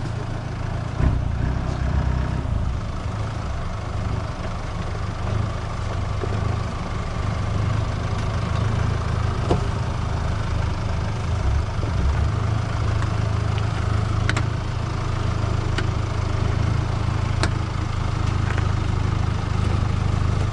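Troller 4x4's diesel engine running steadily at low revs, a low drone, with a few sharp clicks and knocks now and then.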